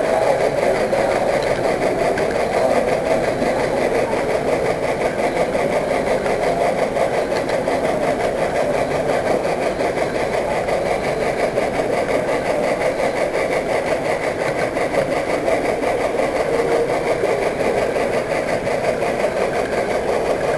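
Model train rolling steadily along the layout track, a continuous rumble of small wheels on rail and the running gear of the train carrying the camera.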